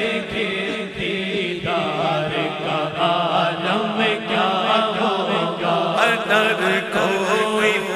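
Devotional naat singing with no instruments: men's voices chanting over a steady sustained vocal drone.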